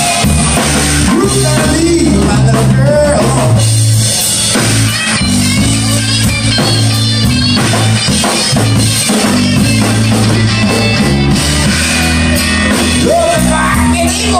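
Live rock band playing: electric guitar, bass guitar and a Sonor drum kit, loud and driving, with the singer's voice coming in a second or so in and again near the end.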